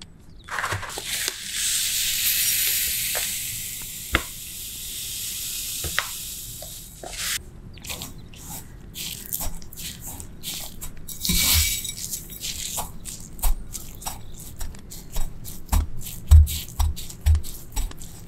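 Dry bread crumbs poured into a ceramic bowl, a steady hiss for about six seconds. Then a rice ball is pressed and rolled in the crumbs: a run of crisp crackles and crunches, with a few dull knocks near the end.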